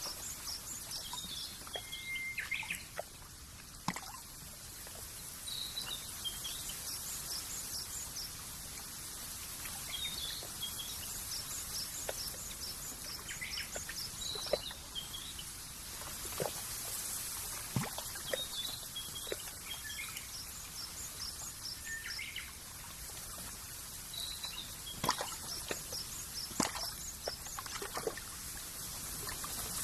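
Nature ambience: small birds chirping in quick repeated series and scattered calls over a steady wash of trickling water, with occasional sharp drip-like ticks.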